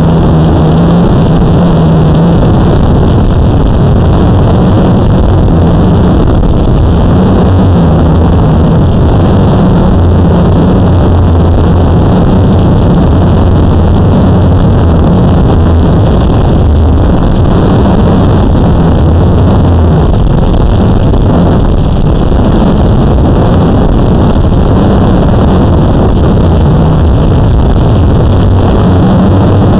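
Blade 350 QX quadcopter's electric motors and propellers heard from its own onboard camera: a loud, steady buzz whose low hum shifts up and down in pitch now and then as the motors adjust.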